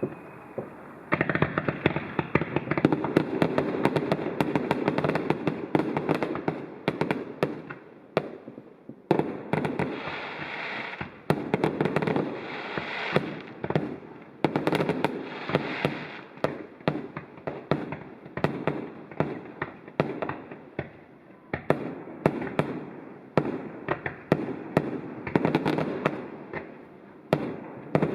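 Fireworks display: rapid, dense volleys of bangs and crackling, starting about a second in, with a few brief lulls between salvos.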